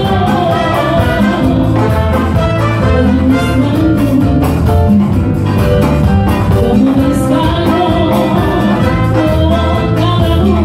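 Live Latin dance band playing a merengue: a trumpet and trombone section, keyboard, electric guitar, bass and drums, with women's voices singing, steady and loud throughout.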